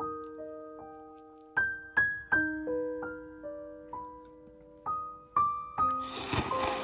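Background piano music: single notes struck one after another and left to ring. Near the end a short burst of noise joins the notes.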